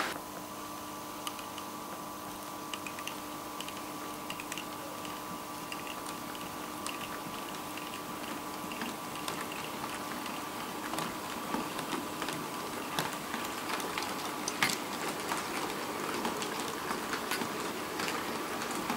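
TT-scale (1:120) model train rolling past: a steady faint hum with light, irregular clicking of the wheels over rail joints and points, the clicks coming more often in the second half.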